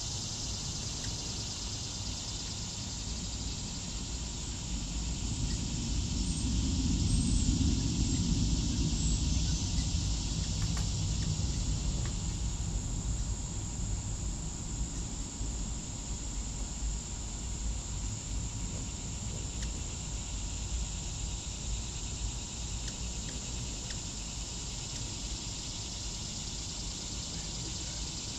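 Outdoor ambience: a steady high insect hiss, like crickets, with a low rumble that swells about six seconds in and fades out by about twelve seconds.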